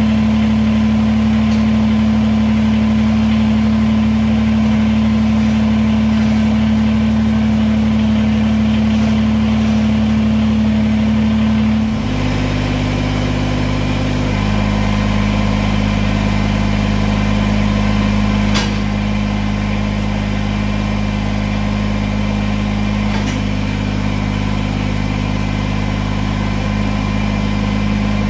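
Kubota BX compact tractor's three-cylinder diesel engine running steadily. Its note changes about twelve seconds in, shifts again a couple of seconds later, and a single sharp click comes about two-thirds of the way through.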